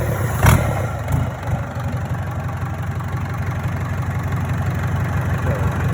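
Freshly rebuilt Hyundai D4DC four-cylinder diesel engine running at a steady idle moments after its first start, with one louder knock about half a second in.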